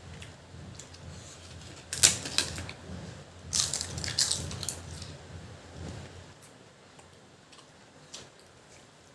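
Crisp papad cracking and crunching in two loud bursts, about two seconds in and again from about three and a half to nearly five seconds in, followed by a few faint clicks.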